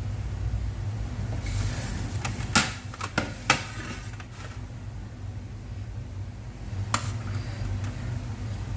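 Metal utensil and pot knocking and clinking against a dish a few times while drained cooked rice is scooped across, with a brief scraping hiss before the first knock, over a steady low hum.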